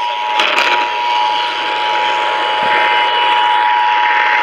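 Emergency Alert System two-tone attention signal, two steady tones sounding together, held over hissing radio static, with a brief crackle about half a second in.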